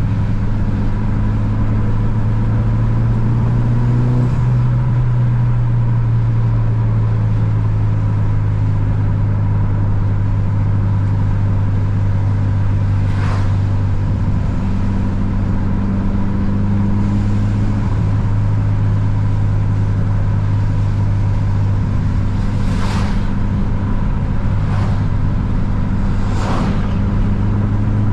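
Tuned 400 hp Mitsubishi Lancer Evolution VIII's turbocharged 4G63 four-cylinder engine running steadily on the road at cruise. Its note rises a little and then drops about four seconds in. A few short, faint ticks come in the second half.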